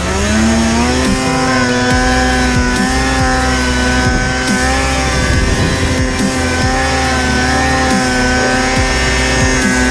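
Polaris snowmobile's two-stroke engine revving back up in the first half second, then held at high, steady revs as the sled pulls through deep powder.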